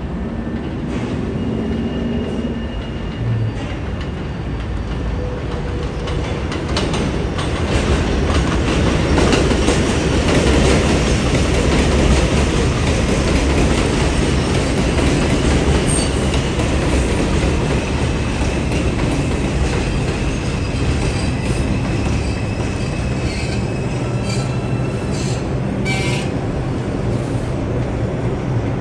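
An R142 subway train (New York City Transit 4 train) running into an elevated station on open steel track. Its wheels rumble and clatter over the rails, growing loudest about ten seconds in, with a thin high whine or wheel squeal as it passes along the platform and slows.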